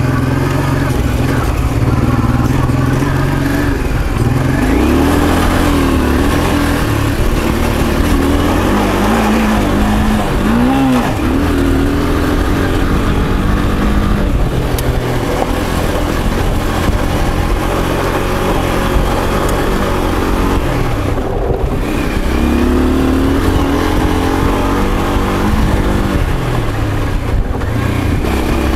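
Honda Africa Twin's V-twin engine pulling uphill on a dirt road, its revs rising and falling over and over as the throttle works. The rider reports ignition trouble that leaves it low on power and response, which he hopes is just worn spark plugs.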